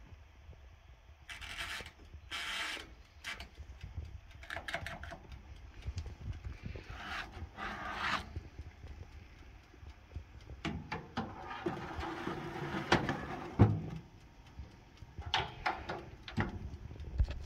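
Handling noises at a countertop electric oven: clicks from its dials being turned and the scrape of a metal baking tray sliding in on the oven rack, in scattered short bursts with the longest stretch of scraping in the second half.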